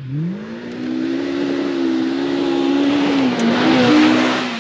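A side-by-side UTV's engine revs hard as it races up a dirt track and passes close by. The pitch climbs at first, then holds high with a brief dip about three seconds in. A hiss of flung dirt and gravel grows to its loudest as the vehicle goes past, near the end.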